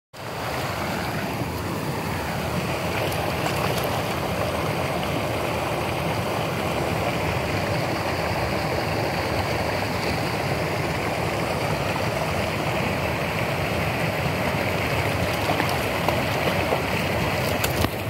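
Mountain stream rushing over rocks: a steady, even wash of white water.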